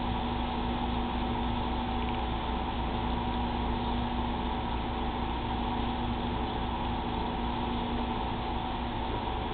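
A steady hum and hiss that never changes, with a few constant tones in it and no distinct sounds standing out.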